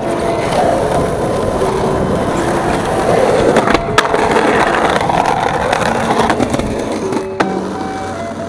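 Skateboard wheels rolling on rough asphalt, then a clack as the board pops up onto a concrete curb. It grinds along the curb edge for a couple of seconds, and the board slaps down again near the end.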